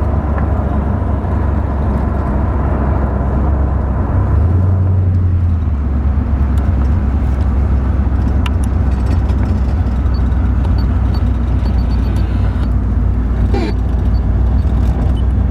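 1969 Chevrolet Corvette's 350 V8 running under way, heard from inside the car as a steady low drone with road noise. The drone's pitch shifts for about a second around four seconds in.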